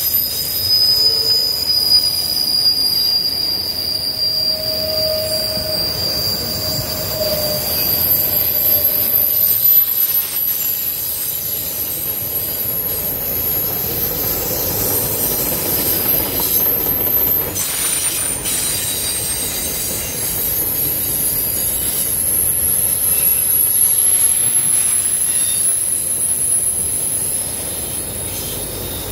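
Freight train of autorack cars rolling past, with a steady rolling noise from the wheels on the rails. Over it the steel wheels squeal in several shrill, high-pitched tones that hold for seconds, shift slightly in pitch, and fade in and out.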